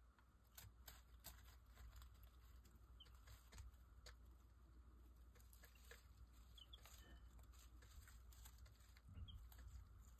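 Week-old White Leghorn chicks pecking feed from a plastic feeder tray: faint, irregular clicks of beaks on feed and plastic, with a few brief, soft peeps.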